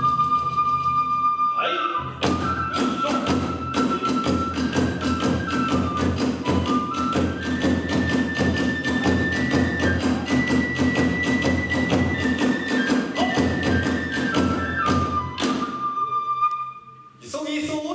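Kagura hayashi music: a bamboo transverse flute (fue) plays a long, held melody over a fast, even beat of drums and small hand cymbals. The beat stops about two seconds before the end, leaving the flute alone briefly, and a voice starts up right at the end.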